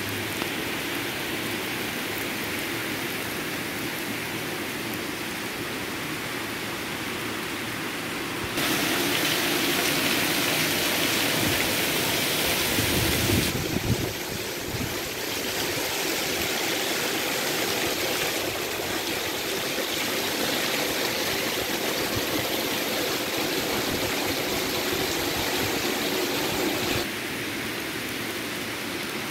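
Heavy tropical downpour: a steady, dense hiss of rain falling on tile and corrugated sheet roofs and trees. It grows louder for about five seconds roughly a third of the way in, then settles back.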